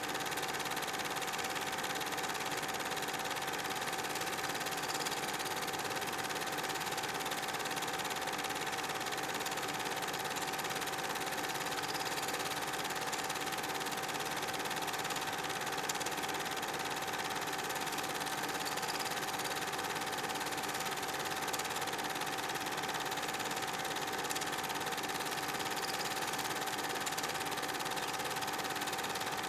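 Steady mechanical whirring of an old film projector, an even running hum with a constant tone that does not change.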